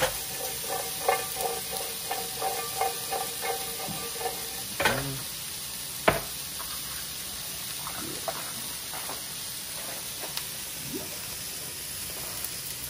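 Green beans sizzling in oil in a nonstick frying pan, with a utensil clacking against the pan as they are stirred. A run of quick clacks comes in the first few seconds, and a sharper knock about six seconds in.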